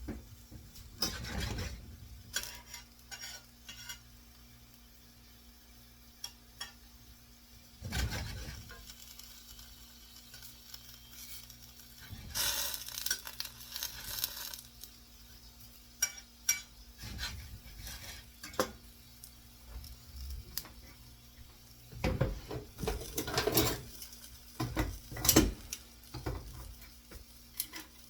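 A utensil stirring and scraping food around a frying pan, with metal clinks and clatter that come in bursts between quieter stretches, over a faint sizzle.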